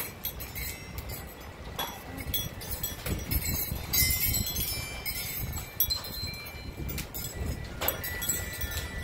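Hail falling in a storm: hailstones clicking and clattering irregularly on hard surfaces over a steady hiss, with light high-pitched chiming ringing through it.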